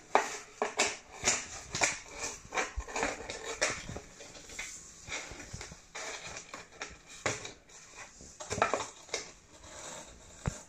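Cat scratching and pawing around inside a cardboard box: a string of irregular scrapes, rustles and light knocks of claws and paws on cardboard.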